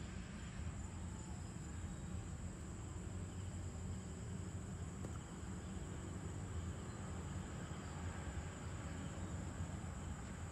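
Crickets and other insects chirring steadily at dusk over a low, steady rumble.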